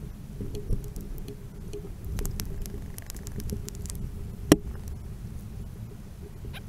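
Water sloshing in a green plastic gold pan as it is dipped and swirled in a running creek, with scattered light clicks and one sharp click about four and a half seconds in.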